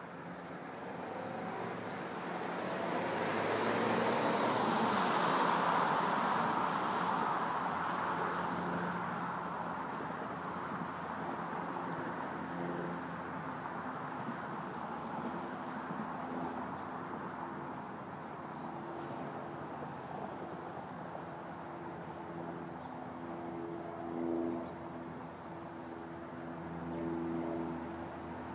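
Crickets chirring steadily, with a vehicle passing by and fading away a few seconds in.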